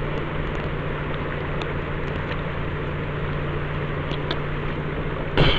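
Steady, even background noise with a low steady hum underneath, without distinct events, and a brief sound just before the end.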